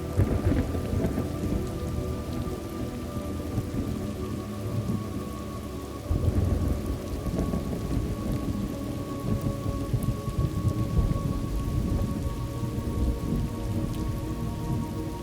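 Steady rain with rolling thunder: one rumble swells right at the start, and a louder, longer roll begins about six seconds in.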